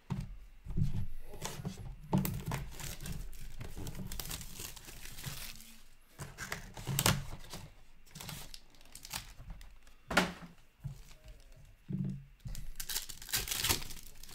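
Plastic wrap being torn off a hockey card box and foil card packs crinkling as they are handled, ending with a foil pack being torn open. The sound comes in several rustling, tearing bursts.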